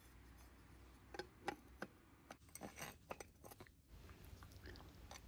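Faint, scattered light clicks and taps from about a second in to near four seconds: the engine's points cover and its screws being handled as the cover is refitted.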